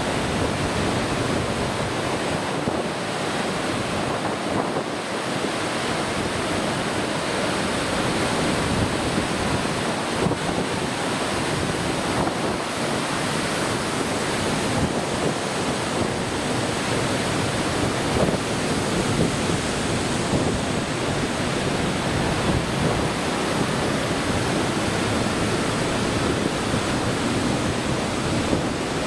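Steady rushing of wind and sea waves, with wind buffeting the microphone.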